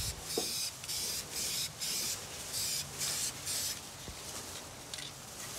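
Aerosol spray-paint can spraying in a series of short bursts, about two a second, that stop about four seconds in.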